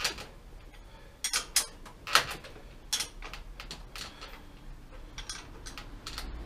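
Hands working a tyre back onto a bicycle wheel rim in a repair stand: irregular sharp clicks and metallic clinks, loudest about two seconds in.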